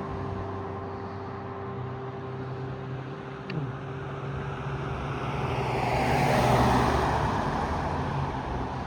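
A road vehicle passing by, its noise swelling to the loudest point a little past the middle and then fading, over a steady low hum.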